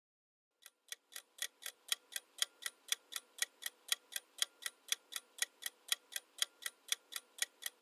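Quiz countdown timer sound effect, a clock-like ticking at about four ticks a second, starting about half a second in.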